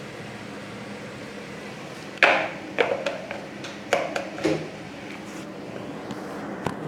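A cooking utensil knocking and scraping against a pan as spaghetti is stirred into a cooked chicken and vegetable mix. There are several sharp clanks, starting about two seconds in, with the loudest first.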